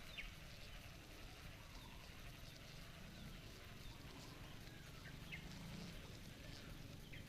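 Near silence: faint outdoor ambience with a few brief, faint high chirps, near the start and about five seconds in.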